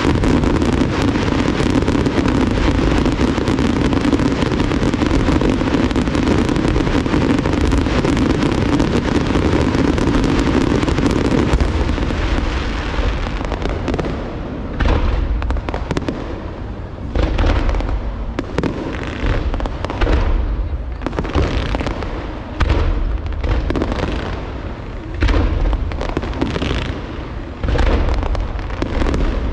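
Large aerial fireworks display: a dense, continuous barrage of bangs and crackle for about the first twelve seconds, then separate shell bursts about once a second.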